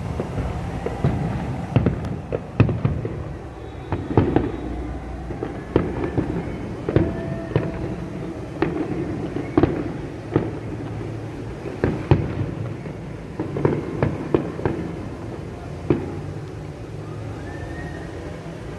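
Fireworks display exploding: an irregular series of sharp bangs and booms, several a second at times, thinning out near the end.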